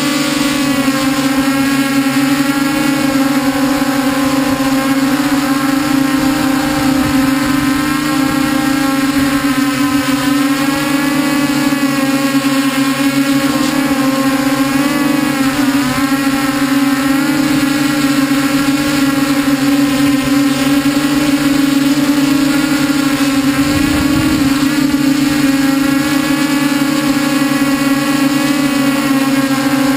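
Multirotor drone's electric motors and propellers in flight, heard from its onboard camera: a loud, steady buzzing hum whose pitch wavers a little around the middle as the drone adjusts its flight. A brief low rumble comes late on.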